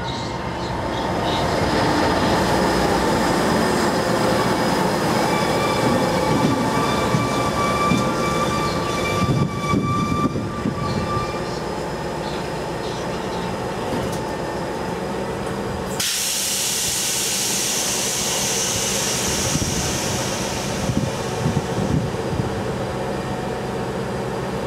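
Plasser & Theurer 08-4x4/4S-RT switch and crossing tamper running slowly in along the track under diesel power, with high steady squealing tones from the wheels or brakes for several seconds. About sixteen seconds in, a sudden loud hiss starts and eases off a few seconds later.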